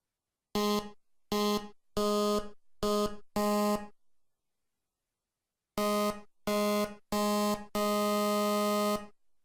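Buzzy synthesizer tone from an LMMS software synth, held at one pitch and played in short notes: five notes, a pause of about two seconds, then four more, the last held for over a second.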